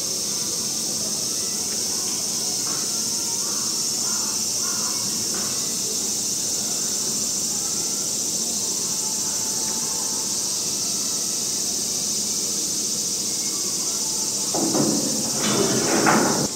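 Steady, high-pitched drone of summer cicadas. Near the end comes a brief, louder burst of noise.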